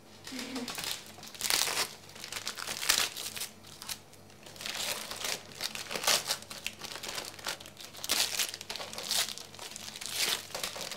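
Gift-wrapping paper being pulled, crumpled and torn off a large present by hand, crinkling and rustling in irregular rushes.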